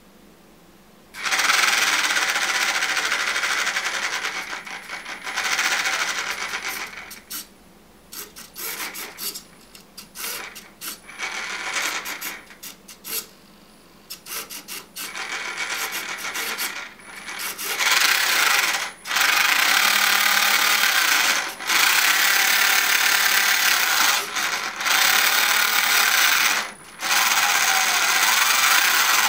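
Small electric drive motor and gears of a home-built RC car with its body off, whirring in repeated bursts of a few seconds with short stops between.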